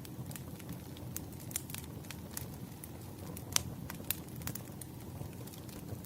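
Burning firewood crackling: scattered sharp pops and snaps over a low steady rumble of the flames, the sharpest pop about three and a half seconds in.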